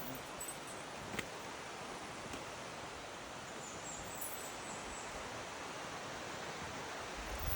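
Steady outdoor hiss with rustling, broken by a sharp click about a second in and a low thump near the end.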